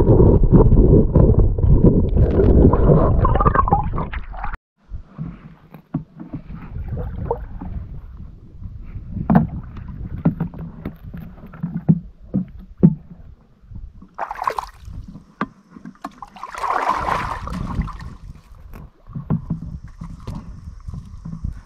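Muffled rumble and sloshing of a camera held underwater in a shallow stream bed, cutting off suddenly about four and a half seconds in. Then quieter handling of a wet river stone at the water's edge: scattered knocks and a couple of brief splashes.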